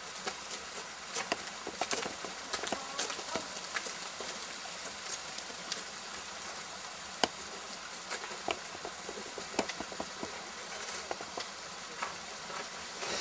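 Irregular sharp clicks and knocks of ice axes and crampons striking waterfall ice, over a steady hiss. The loudest single strike comes about seven seconds in.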